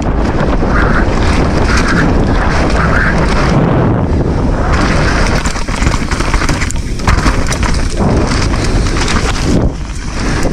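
Enduro mountain bike descending a muddy trail, heard from an action camera: wind buffeting the microphone over a constant clatter and rattle of the bike on rough ground.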